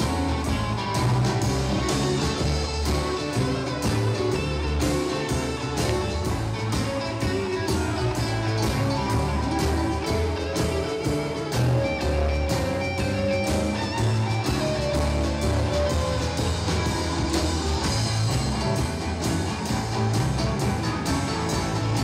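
Live blues band playing: electric guitar over drums, bass and keyboard, with a steady beat.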